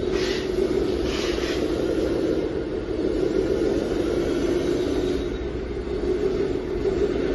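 Radio-controlled model truck running, a steady drone from its motor and drivetrain, with two short hissy bursts in the first second and a half.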